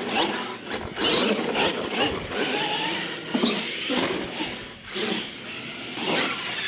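Radio-controlled monster truck driving across a concrete floor, its small electric motor whining as the throttle is worked.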